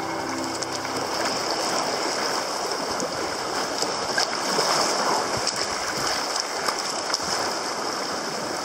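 Choppy sea water rushing and sloshing around a sea kayak in a swell, with scattered small splashes.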